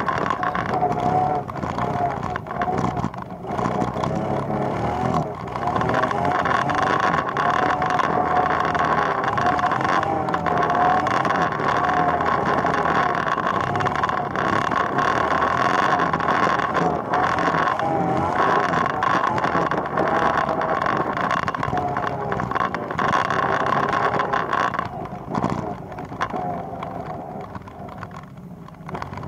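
ATV engine running steadily while riding, its pitch wavering slightly, then falling quieter near the end.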